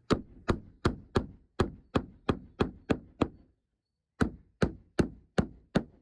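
Hammer driving a nail into timber: a steady run of about ten sharp blows, roughly three a second, a short pause, then five more.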